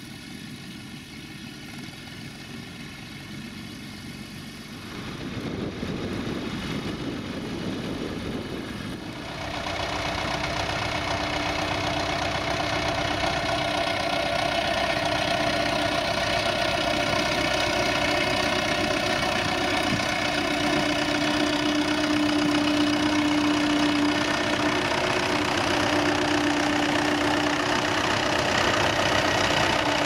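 Vintage tractor engine running steadily under load as it pulls a mounted plough through stubble. It grows louder about five seconds in and again about nine seconds in, with a steady tone over the engine noise from then on.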